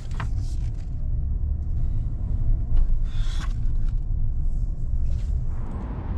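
Low, steady rumble of a Chevy Silverado pickup driving slowly, heard from inside the cab, with a few light clicks and knocks; a wider hiss comes in near the end.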